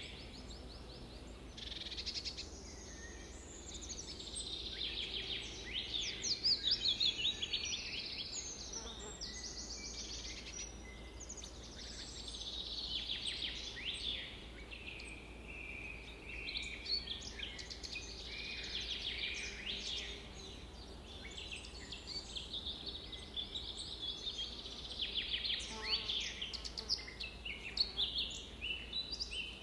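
Several songbirds chirping and singing at once in a busy chorus of quick trills, twitters and short downward-sweeping notes, with brief lulls between louder flurries.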